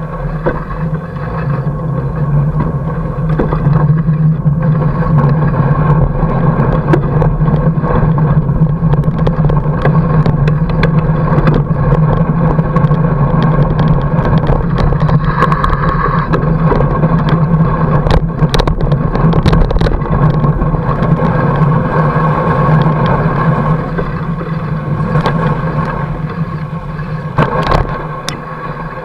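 Fat bike rolling over snow, picked up by a camera mounted on the bike: a loud steady hum and rumble from the wide tyres and frame, with scattered knocks and rattles from bumps.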